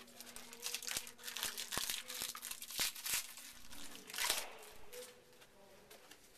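Crinkling and rustling of a trading-card pack wrapper as it is handled and torn open, with the cards shuffled by hand. The crackling is loudest about four seconds in and quieter near the end.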